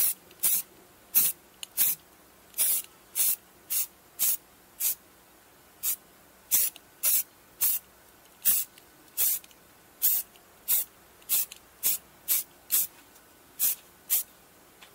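Aerosol spray can of self-etching primer hissing in short bursts, about two a second, as it lays on a light first coat.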